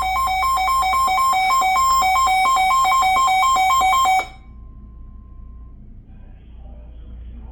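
Electronic weather-alert receiver alarm: a loud, buzzy two-tone warble that alternates between a higher and a lower pitch about four times a second, grows a little louder, then cuts off abruptly about four seconds in. Faint broadcast speech follows.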